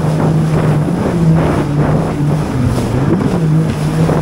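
Jet ski engine running under way, its pitch dropping about two and a half seconds in and climbing back shortly after, with wind buffeting the action camera's microphone.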